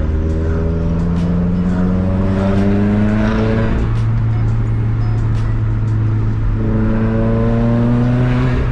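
Subaru WRX's turbocharged flat-four engine pulling up through the revs under acceleration. Its pitch drops suddenly at a gear change about four seconds in, holds steady for a couple of seconds, then climbs again.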